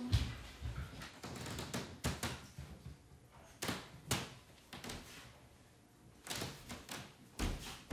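Household knocks and clatter: several separate thumps and clacks at irregular intervals, with the loudest near the start and near the end.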